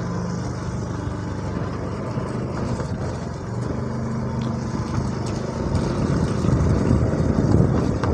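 Motorcycle engine running at low speed while riding, with road noise; it grows louder in the last couple of seconds.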